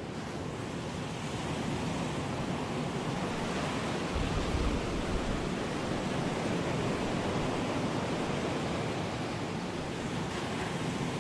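Ocean surf breaking and washing over a rocky shore: a steady rushing wash, with a brief deeper rumble about four seconds in.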